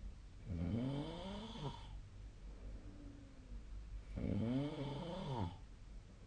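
A sleeping person snoring: two snores about three and a half seconds apart, each rising and then falling in pitch, with a softer breath between them.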